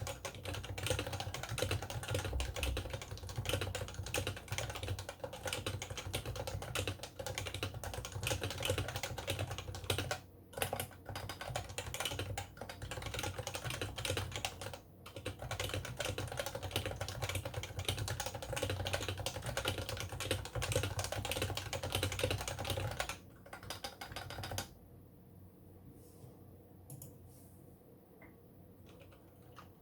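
Typing on a two-year-old HHKB Pro 2 Topre keyboard: a fast, continuous stream of keystrokes, with short breaks about ten and fifteen seconds in. About two thirds of the way through the typing stops, and only a few faint key taps follow.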